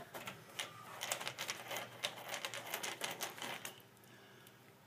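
No. 2 Phillips screwdriver turning a screw out of the machine's sheet-metal fan box: a quick, irregular run of small metallic clicks and scrapes that stops about three and a half seconds in.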